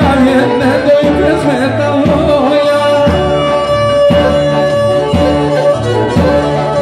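Live Pontic Greek folk music: singing over bowed-string and bass accompaniment, with a long held note through the middle and a low beat about once a second.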